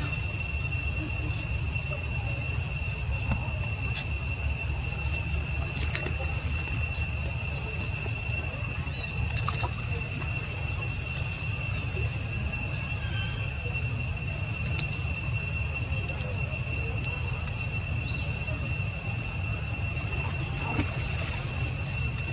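Insects trilling steadily at one unchanging high pitch, over a low steady rumble, with a few faint ticks.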